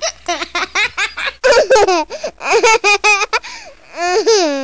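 A small child laughing in quick runs of giggles, then near the end one long laughing squeal that slides down in pitch.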